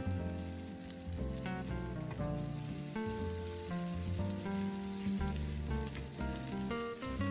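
Egg fried rice sizzling in hot oil in a pan, a steady hiss of frying, under background music with a simple melody.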